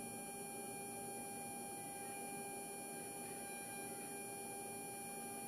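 Faint, steady electrical hum with a constant high-pitched whine from the powered synchro test setup on the bench.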